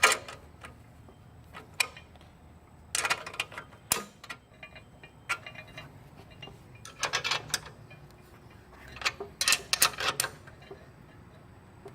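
Ratchet wrench clicking in short runs, several separate bursts of quick sharp clicks with pauses between, as the rear axle nuts are tightened to 30 foot-pounds.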